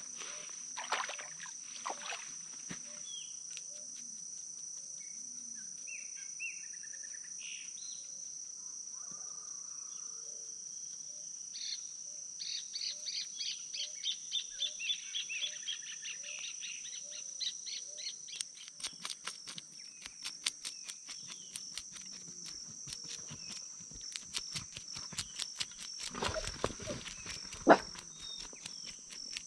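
A steady high insect drone with birds calling over it. In the second half, a knife scrapes the scales off a small lambari fish in quick, rapid strokes, with one sharp click near the end.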